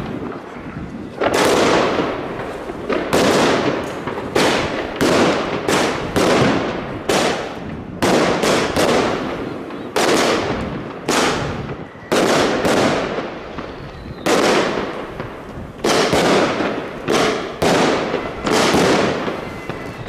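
Consumer aerial firework battery (cake) firing shot after shot, with shells bursting overhead: a rapid series of loud bangs, about one to two a second, each dying away over a fraction of a second.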